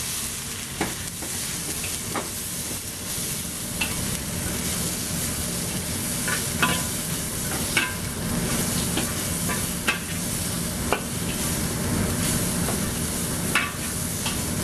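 Sliced vegetables sizzling in a hot wok as they are stir-fried, with a metal spatula scraping and clinking against the wok every second or so.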